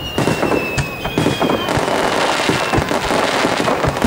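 Aerial fireworks bursting in quick succession with dense crackling throughout. A thin whistling tone slowly falls in pitch over the first second and a half.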